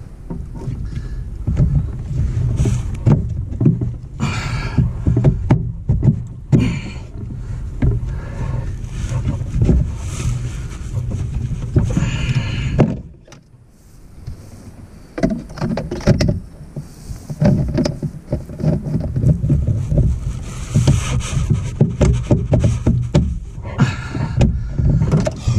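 Handling noise of a replacement heater blower motor being twisted and worked into its plastic housing under a Jeep TJ dash: plastic scraping, knocking and clicking over a low rumble, with a few louder scuffing bursts.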